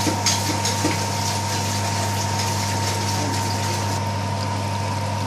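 A steady low hum with an even hiss over it, the constant background noise of the kitchen, with a few faint crackles in the first second.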